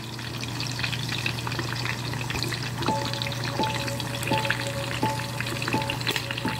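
Pork belly deep-frying in a pot of hot oil: a dense, steady sizzle full of small crackles and pops as the skin blisters.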